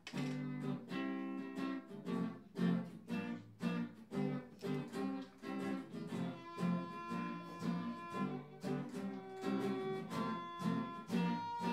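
Instrumental music: short plucked string notes in a steady rhythm, with longer held notes of a higher melody coming in about six seconds in.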